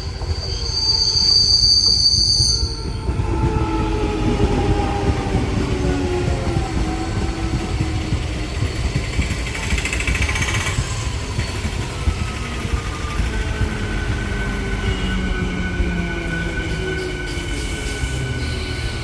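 Train pulling out of a station and accelerating, with a steady low rumble throughout. A high tone sounds for the first two seconds or so, then several whines slide down in pitch, and steadier whines follow in the second half.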